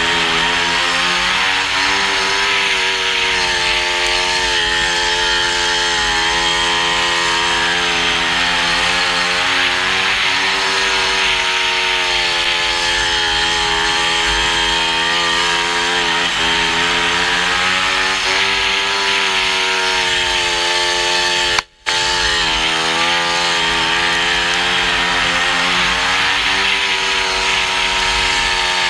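Speedway bike's 500cc single-cylinder methanol engine running hard on the throttle, its note rising and falling repeatedly through the straights and bends. The sound cuts out for a moment about two-thirds of the way through.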